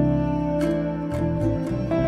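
Soft background music: a gentle plucked-string melody, with new notes sounding every half second or so.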